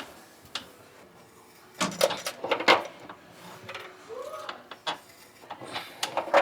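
A series of sharp metallic clanks and knocks from tools and fittings being handled during plumbing work, bunched together about two seconds in and again near the end.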